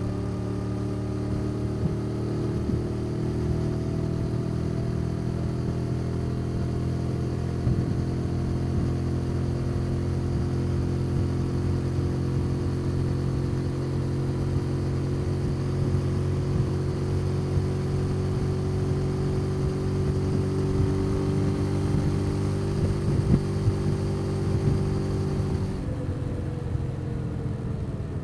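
Motorcycle engine running steadily at cruising speed, its pitch drifting slowly, with wind rumble on the microphone. About two seconds before the end the higher part of the sound drops away and the engine note begins to fall.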